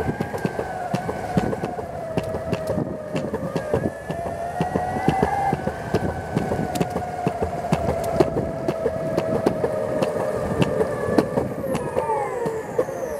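Dual 6355 brushless motors of a DIY electric longboard whining under power, over the rumble of the wheels on a concrete sidewalk with frequent ticks from the pavement joints. Near the end the whine glides down in pitch as the board slows.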